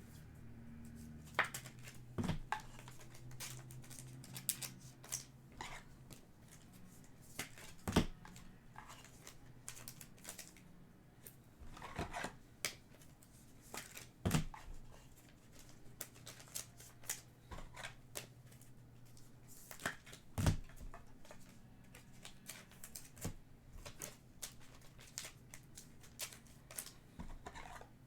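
Panini Prizm trading cards and their foil packs being handled: irregular clicks, snaps and crinkles as cards are flipped and wrappers opened, over a faint low hum.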